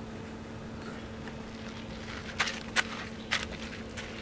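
Three sharp clicks and knocks in the second half, from a window screen frame being pushed and pried into the side-door window opening of a van, over a steady low hum.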